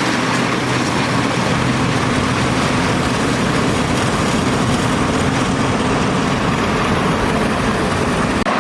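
Fortschritt E517 combine's 14.5-litre Schönebeck V8 diesel running steadily, with the machine's working noise over it. The sound breaks off for an instant near the end.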